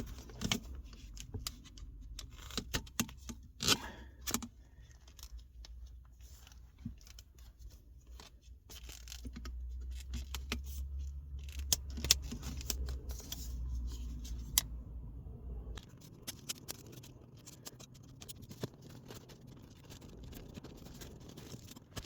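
Irregular small clicks, scrapes and tearing sounds of an old gear stick gaiter being worked loose from its stapled plastic surround by hand, with a low rumble for several seconds midway.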